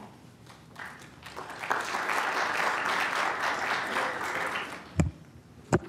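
Audience applauding for about three seconds as the next speaker is introduced, then two short thumps near the end.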